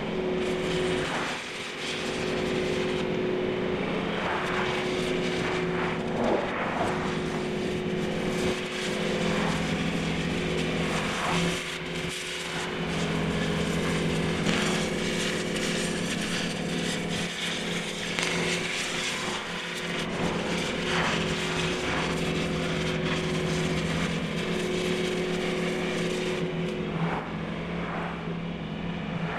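A steady machine or engine hum with a constant rushing noise and scattered short clatters.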